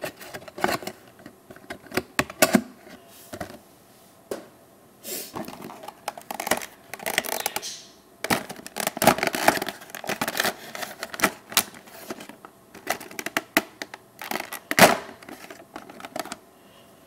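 A diecast model's cardboard box and packaging being opened and handled: irregular taps, scrapes and rustling, with scattered sharp clicks.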